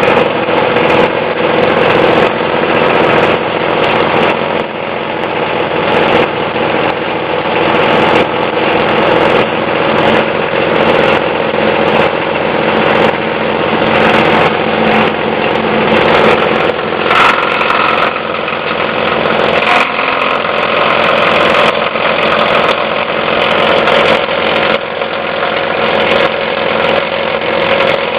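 Plastic shredding machine running under load, a steady motor hum with frequent irregular sharp cracks as plastic is chopped.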